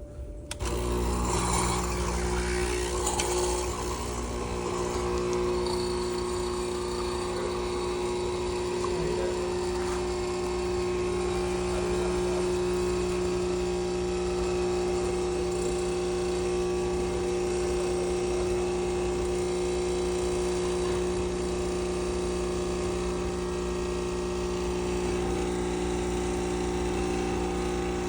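Nespresso machine running with a steady electric buzz that starts abruptly about half a second in.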